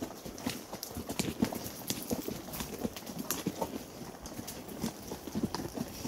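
Horse hooves clip-clopping on a trail: irregular hoof strikes, several a second.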